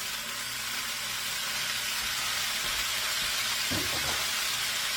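Chicken, onion and red bell pepper sizzling steadily in hot oil in a frying pan as pineapple chunks go in with them.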